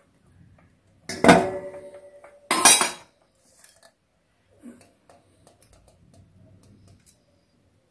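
Stainless-steel kitchenware clanking: two sharp metal knocks about a second and a half apart, the first ringing briefly, followed by a few faint light knocks.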